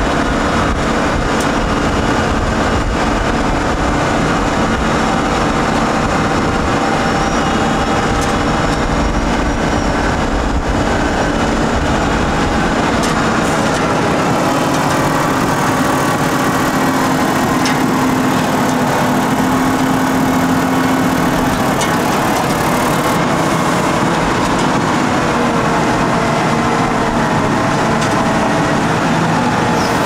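Volvo L150H wheel loader's six-cylinder diesel engine running steadily while working. One engine tone strengthens for several seconds past the middle.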